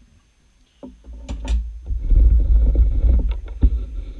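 Metal lathe starting up after a few sharp clicks about a second in, then running with a loud, steady low rumble.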